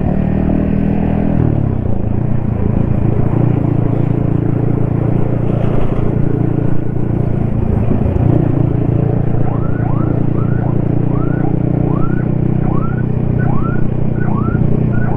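Yamaha XSR155's single-cylinder four-stroke engine running under way, its pitch dropping about a second and a half in and then holding steady. From about halfway on, a short rising chirp repeats roughly every two-thirds of a second.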